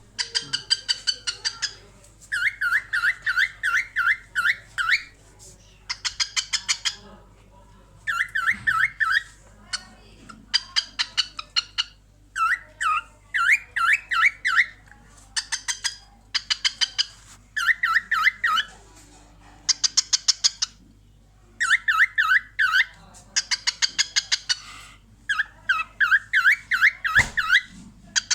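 Cockatiel chattering in about a dozen bouts of rapid, stuttering calls with wavering chirps, each bout a second or two long with short pauses between.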